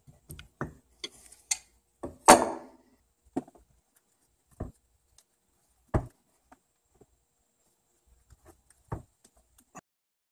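Scattered taps and knocks of a cast brake caliper and hand tools being handled on a wooden workbench; the loudest is a clunk with a short ring a little over two seconds in, and another solid knock comes about six seconds in.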